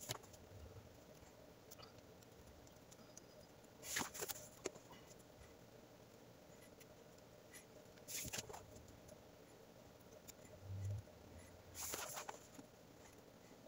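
Nylon 550 paracord rustling and swishing as the strands are swung over and pulled tight while braiding a lanyard by hand, in four short rustles about four seconds apart over a faint room hum.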